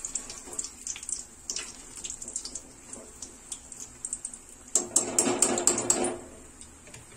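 Battered green chillies (mirchi bajji) deep-frying in hot oil in an aluminium kadai: a steady sizzle with scattered crackling pops, louder and fuller for about a second and a half around five seconds in.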